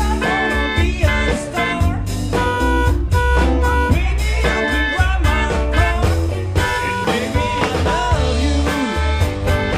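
Car horns from Porsche, Fiat and Mini cars play held and repeated notes as a horn orchestra over a musical backing with a heavy bass line and guitar.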